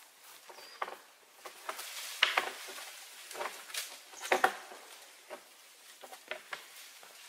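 Irregular crackles and snaps of twigs and dry leaves as a red deer stag moves under low branches, loudest about two and four and a half seconds in. A short high bird chirp comes just before the first snap.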